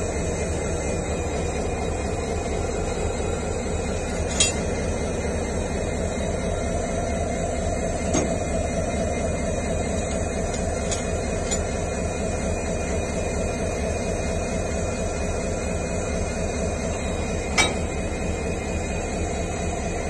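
A few sharp metallic clinks, about five spread out with the loudest near the end, as a worker handles the screw coupling between two railway coaches, over a steady mechanical rumble.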